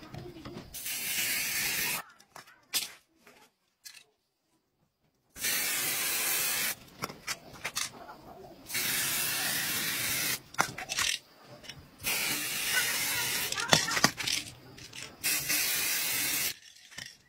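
Aerosol spray-paint cans hissing in about five bursts of one to two seconds each, with short pauses and a few light clicks between them.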